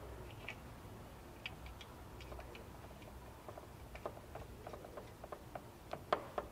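Faint, irregular small clicks and ticks of a brass self-sealing can tap being threaded onto a metal can of R-134a refrigerant, with one sharper click about six seconds in.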